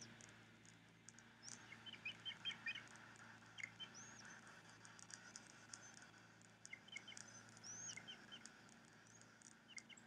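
Faint, high, squeaky chirps in quick clusters from great gray owl nestlings as the adult owl feeds them, with a few thin, high whistling notes and small ticks.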